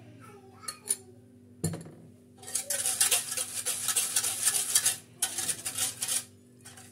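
Wire whisk beating a milk mixture in a metal saucepan, its wires rattling fast against the pan. A few light clicks and a knock come first, then two spells of brisk whisking with a short break between them.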